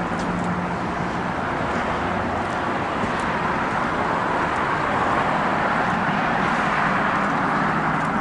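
Steady road traffic noise from a nearby highway, growing a little louder around the middle as vehicles pass.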